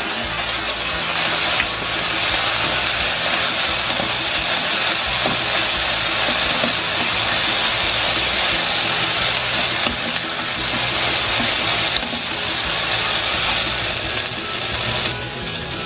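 Garlic scapes and flat fish cake stir-frying in a hot nonstick pan, a steady sizzle from soy sauce poured around the hot edge of the pan as they are stirred; the sizzle eases a little near the end.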